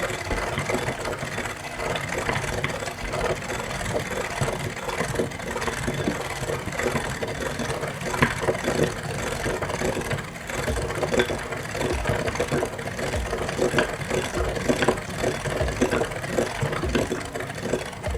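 Meat grinder running with a steady motor hum as kinetic sand is fed through it, with dense irregular crackling and clicking from the sand being crushed and pushed out.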